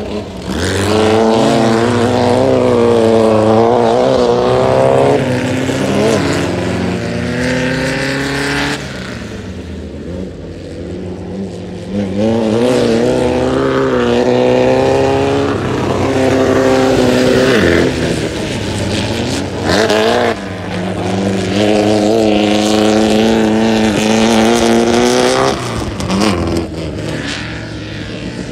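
A VW-powered tubular off-road race buggy's engine revving hard under load. It comes in three long pulls with its pitch climbing and dropping through throttle and gear changes, easing off between them.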